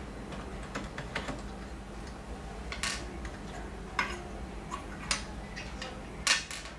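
Light clicks and taps of hard plastic as a small black plastic piece is unclipped from a Kyocera KM-2550 fuser unit's housing and set down on a table, with a couple of louder knocks near the end.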